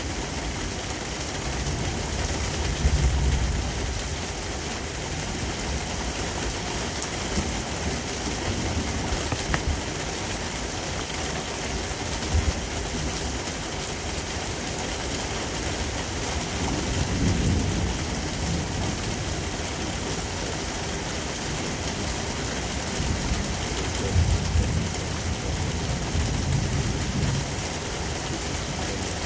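Heavy thunderstorm rain falling steadily, with low rumbles of thunder swelling up a few times: a few seconds in, around the middle, and again near the end.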